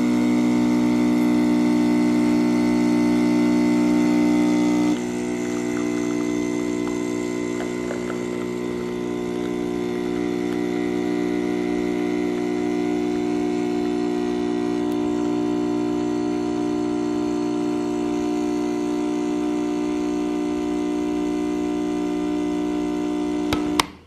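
Donlim espresso machine's electric pump humming steadily while it pulls a long lungo shot. The hum drops a little in level about five seconds in, and cuts off with a click near the end when the machine is switched off.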